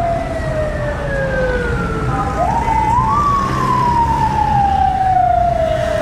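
A siren wailing: its tone climbs quickly, then falls slowly over about three seconds. It climbs again about two and a half seconds in and falls once more. Under it runs the steady low rumble of road-paving machinery.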